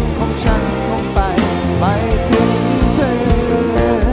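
Live band playing a slow rock song: drum kit, bass and electric guitars, with a lead melody that slides and bends in pitch over steady drum hits.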